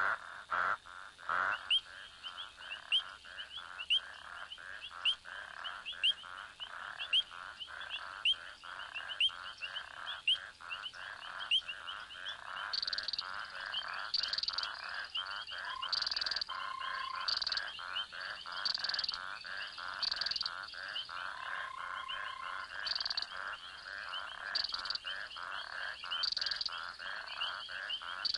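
A breeding chorus of several kinds of frogs calling together at a pond: dense rapid clicking under many quick rising chirps. From about halfway in, a louder call repeats every second or two, and twice a short steady whistle sounds.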